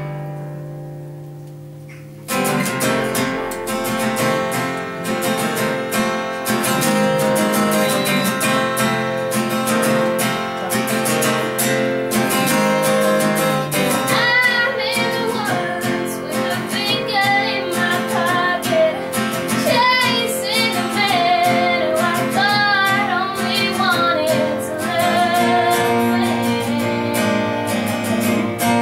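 Acoustic guitar playing a song intro: a chord fades out, then a steady picked and strummed pattern starts about two seconds in. A woman's singing voice with vibrato comes in about halfway through over the guitar.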